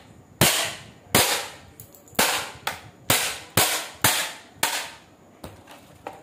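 Mini cooler's plastic housing being forced and broken apart by hand: a series of sharp plastic cracks and knocks, about two a second, weaker and sparser near the end.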